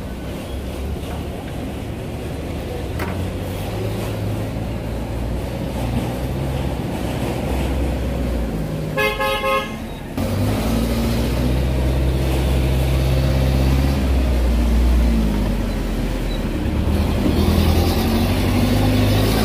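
Street traffic with vehicle engines running steadily, and a vehicle horn beeping a few short times about halfway through.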